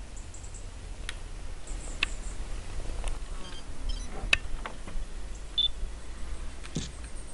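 Outdoor ambience with a steady low rumble, scattered sharp clicks and taps (the loudest a little past the middle), and a few faint, short, high-pitched chirps of small birds.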